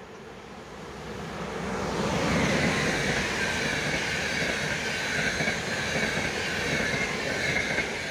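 RegioJet passenger train, an electric locomotive hauling coaches, passing close by. The rumble and rail noise swell about two seconds in and hold steady with a high whine on top, then drop as the last coach goes by near the end.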